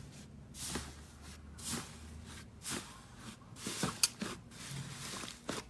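Slime being squished and pressed by hand, in short strokes about once a second, with a sharper click about four seconds in.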